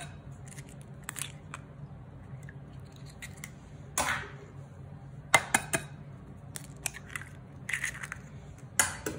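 Eggs being cracked into a glass bowl: sharp taps of the shells against the bowl and the crunch of shells being pulled apart, in scattered clusters a second or more apart.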